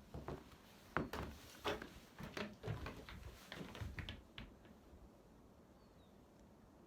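Footsteps on a snowy trail: a run of irregular steps that stops about four and a half seconds in.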